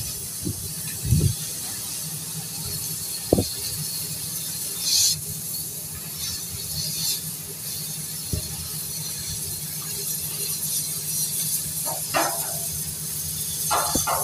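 Oxygen and fuel-gas cutting torch hissing steadily as it cuts through a steel pile, over a low steady hum. A few sharp knocks sound about a second in, about three and a half seconds in and past eight seconds in.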